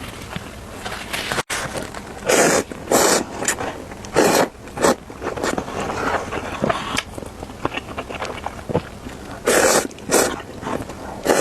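Instant noodles slurped loudly, in three pairs of slurps each about half a second apart, with quieter chewing between.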